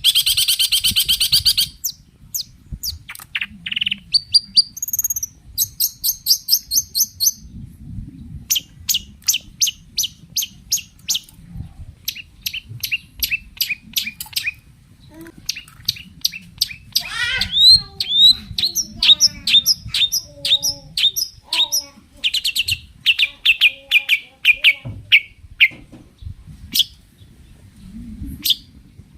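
Long-tailed shrike (cendet) singing: a rapid harsh chatter at the start, then a long, varied run of short sharp notes and quick trills.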